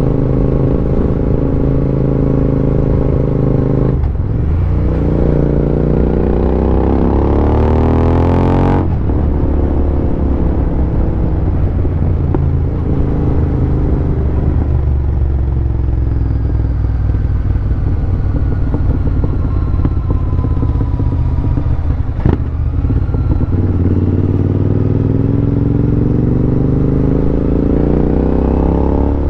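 Royal Enfield Interceptor 650's parallel-twin engine under way, heard from the rider's seat. The revs climb for several seconds, then drop suddenly with an upshift, ease off as the bike slows, and climb again near the end. A single sharp click comes a little after the midpoint.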